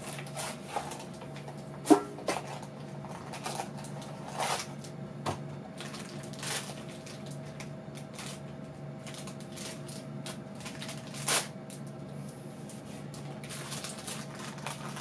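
A small cardboard blind box being handled and opened by hand: scattered rustles, taps and clicks, the sharpest about two seconds in and again near eleven seconds, over a steady low hum.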